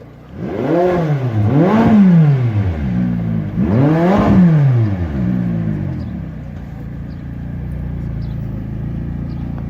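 McLaren 570S twin-turbo V8 revved three times while standing, each rev rising and falling away, then settling to a steady idle.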